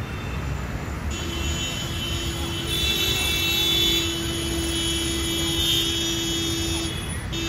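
Busy city street traffic noise, a steady rumble and hiss. From about a second in until near the end, a single steady tone is held with high ringing overtones above it.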